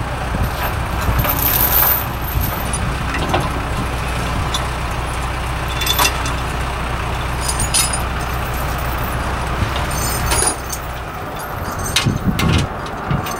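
An engine idling with a steady low rumble that cuts off about ten seconds in, with scattered metallic clanks and clicks from the crew working around the skid steer loader and trailer.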